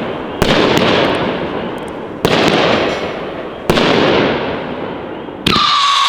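18-shot consumer fireworks cake with howling tails firing: four sharp launch thumps about a second and a half apart, each followed by a fading hiss. The last shot carries a loud howling whistle that slowly falls in pitch.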